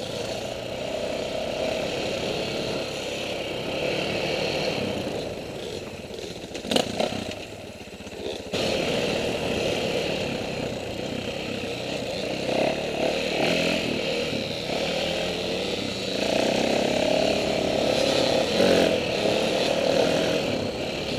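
Dirt bike engine running at varying throttle while riding a trail, heard from the rider's helmet camera. About seven seconds in there is a sharp knock, the engine drops off for a second or two, then picks up again and revs on.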